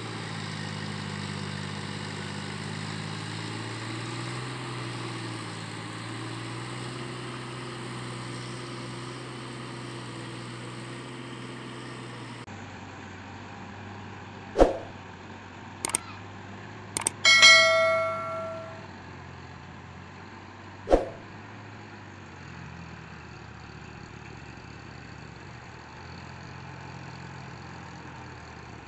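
Sonalika DI 740 III tractor's diesel engine running steadily at a distance as it works a rotavator through a flooded paddy field. In the middle stretch a few sharp clicks cut in, one followed by a short ringing ding.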